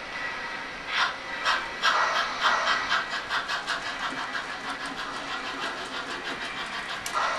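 Model steam locomotive's DCC sound decoder chuffing as the engine pulls away. The chuffs start about a second in and quicken to about four or five a second, with a louder burst of hiss near the end.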